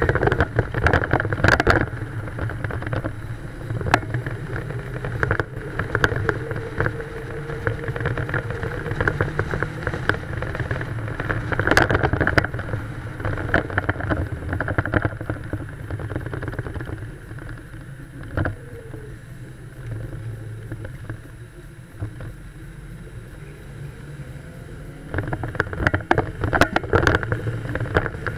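A car driving along, heard from a camera on the outside of the car: wind buffets the microphone over the low drone of engine and tyres. The wind noise eases for several seconds past the middle and picks up again near the end.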